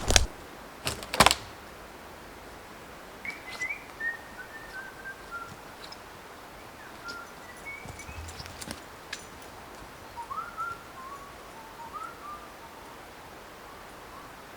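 Two or three sharp knocks in the first second or so, then a songbird singing three short phrases of quick notes that step downward in pitch, with pauses between them.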